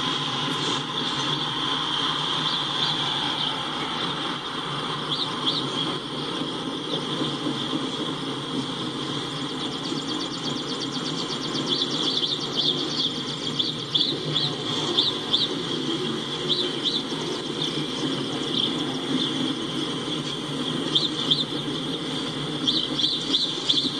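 Norfolk Southern coal hopper cars rolling past on the rails: a steady rumble of wheels on track, with a steady high whine over it. Birds chirp in short repeated bursts, more often in the second half.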